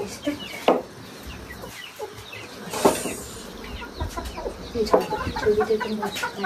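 Domestic chickens clucking in short runs of calls, busiest near the end. Three sharp knocks sound through it: one under a second in, one about three seconds in and one at five seconds.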